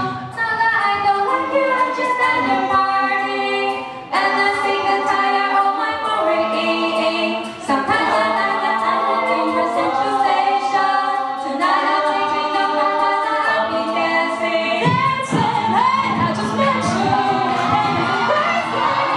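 Mixed-voice a cappella group singing in close harmony through microphones, holding chords that change every second or two, with brief breaths between phrases.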